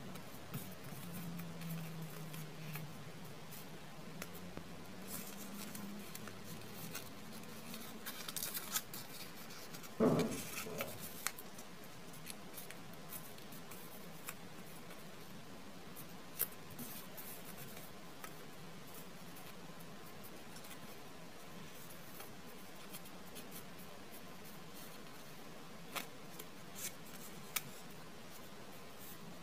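Origami paper being folded and creased by hand: soft rustles and crinkles with scattered sharp paper clicks, the loudest a brief crackle about ten seconds in.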